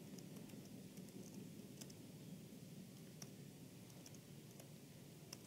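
A handful of faint, scattered laptop keyboard keystrokes over a low, steady room hum.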